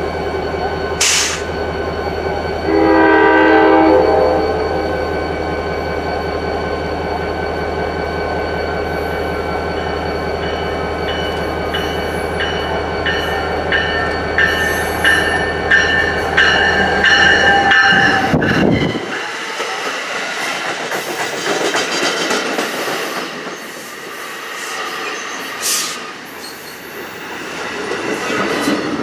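New Jersey Transit commuter train with multilevel coaches. It sounds its horn once, briefly, about three seconds in, then approaches with a rising mix of whining tones. A tone drops in pitch at about eighteen seconds as the head end passes, and the coaches then rush by with steady wheel-on-rail noise.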